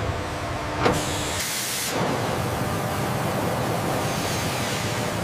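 Factory machinery: a single mechanical clank just under a second in, then a short burst of air hiss. After that comes a steady noisy running sound of a machine, matching a milling machine cutting metal under coolant spray.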